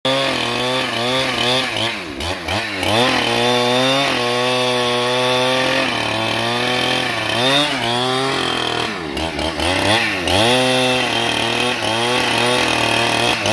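Husqvarna 395 XP two-stroke chainsaw with a long bar running at full throttle while ripping lengthwise through a log. The engine pitch sags and recovers several times as the chain bogs under load.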